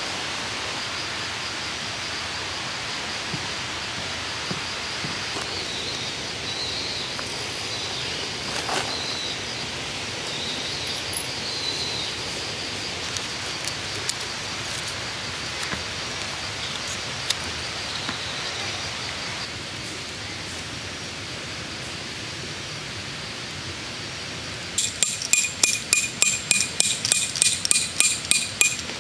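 Steady outdoor hiss with faint, wavering high chirps. About three-quarters of the way through, a loud run of high pulsing tones starts, about four pulses a second for some four seconds.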